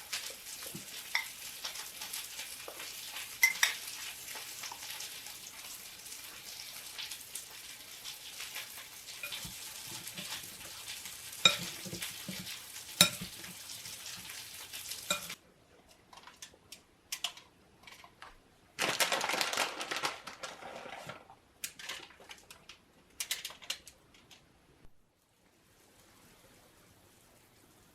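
Food sizzling in a frying pan, with a utensil clicking and scraping against the pan as it is stirred. About 15 seconds in the sizzle cuts off suddenly, leaving scattered kitchen clatter and one short burst of hiss.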